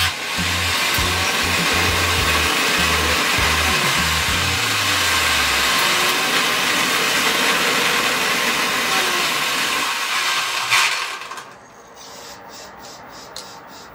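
Homemade butane-fuelled jet engine running: a steady loud rushing roar of burning gas and motor-driven propeller. It cuts out sharply about 11 seconds in, leaving faint regular ticking at about three a second, as the motor's speed controller (ESC) fails.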